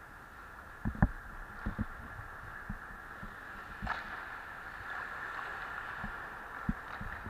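Ice hockey practice on a rink: a steady hum of the arena with scattered dull thumps and knocks from skates, sticks and pucks on the ice. The loudest thump comes about a second in, and a sharper knock about four seconds in.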